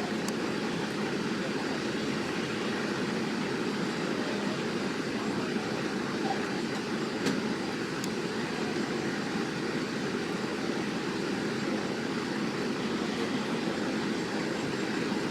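Steady drone of vehicle engines and traffic, with a few faint ticks.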